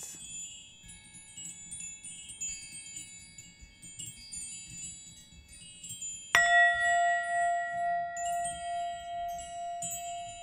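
Wind chimes tinkling with many small high ringing notes. About six seconds in, a single loud bell-like tone is struck and rings on with a slow pulsing waver.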